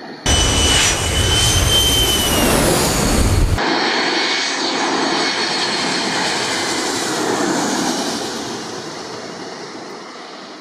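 Jet engines of an Airbus A321 airliner on low final approach, passing close overhead: a loud rush with high engine whines that slide slightly lower. It breaks off abruptly about three seconds in and is followed by a steadier jet noise that fades toward the end.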